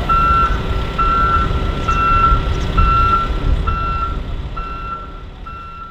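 A heavy construction vehicle's reversing alarm beeping evenly, about once a second, over the low running of its diesel engine. Both fade away over the last two seconds.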